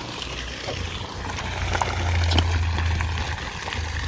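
Water jets of a park fountain splashing steadily into its pool, with a low rumble underneath that grows louder about two seconds in.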